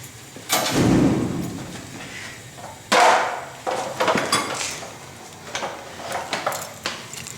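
Knocks and clatter of hard tools and parts being handled: a heavy thud about half a second in, a sharp loud knock about three seconds in, then several lighter knocks.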